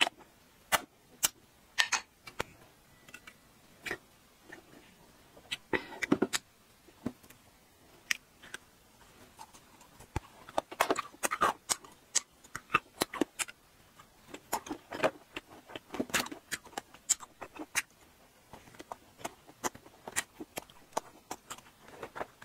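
Close-miked ASMR eating sounds: a string of sharp clicks, bites and crunches at irregular intervals, thickest about six seconds in and from about ten to sixteen seconds in.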